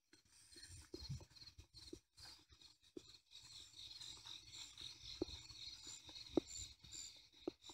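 Faint chorus of night insects, a steady high pulsing chirr, with a few soft knocks in the second half.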